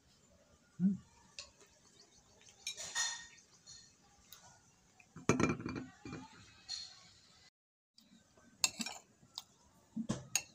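Metal fork clinking and scraping against a ceramic plate while cake is eaten, in scattered short clinks and scrapes.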